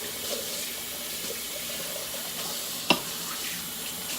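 Kitchen faucet running steadily into a sink of dishwater, with one sharp knock about three seconds in.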